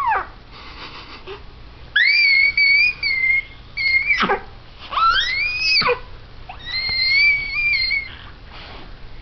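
A baby squealing: four high-pitched squeals, some held with a wavering pitch, one sliding sharply down and one rising.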